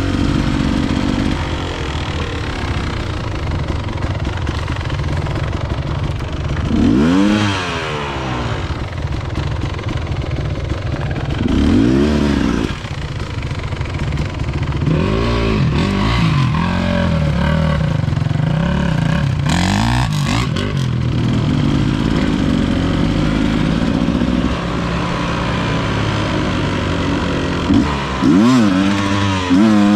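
Enduro motorcycle engine running steadily, with throttle blips that swing the pitch up and down about seven seconds in, around twelve seconds, several times a little later, and again near the end.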